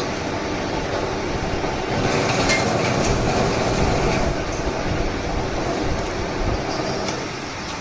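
Electric scrap-wire stripping machine running steadily as a cable is fed through and its insulation stripped off, a continuous rumbling churn with a few sharp ticks.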